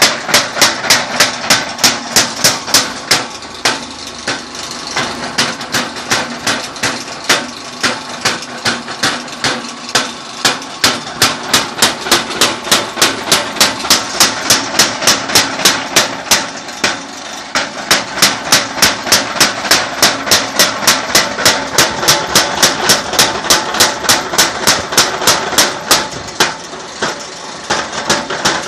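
Spring-clutch mechanical power hammer forging red-hot iron: its ram strikes the workpiece on the die in a fast, even rhythm of about three blows a second, over the steady hum of the running machine. The rhythm breaks briefly about seventeen seconds in.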